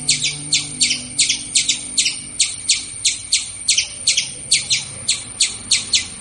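A bird chirping over and over in an even rhythm, about four short, high chirps a second.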